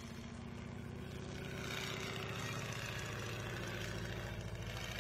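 Stearman biplane's radial engine running steadily as the aircraft flies past, growing louder about a second and a half in.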